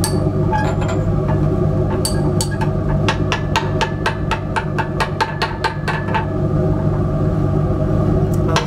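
Glass stirring rod clinking against the inside of a glass beaker while stirring a slurry: a few separate clinks at first, then a quick, even run of ticks, about five a second, for a few seconds in the middle, over a steady low hum.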